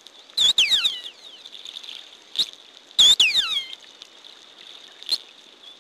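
Killer whale (orca) calls: two bursts, about two and a half seconds apart, each a high call with several downward-sliding whistles. Sharp clicks sound in between, over a steady hiss.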